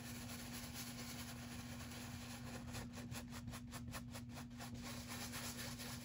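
Faint scratchy rubbing of a paintbrush scrubbing thin acrylic paint onto a canvas in small circles, with a quick run of strokes around the middle, over a steady low hum.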